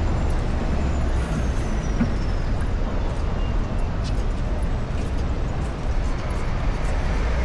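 Steady city street traffic: a continuous low rumble of passing cars and buses, with a faint high falling squeal early on.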